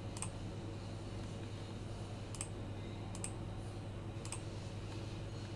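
A computer mouse clicked four times, single sharp clicks spread over a few seconds, over a steady low hum.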